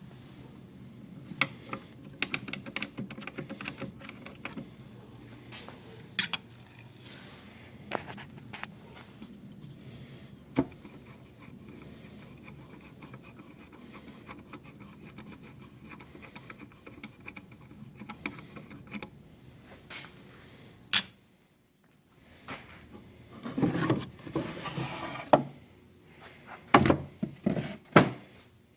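Small parts and tools being handled on a workbench: scattered clicks, clinks and knocks over a steady rubbing and scraping, as metal and wooden pieces of an antique balance are taken apart. There is a sharp click about two-thirds of the way through, then louder knocks and thuds near the end.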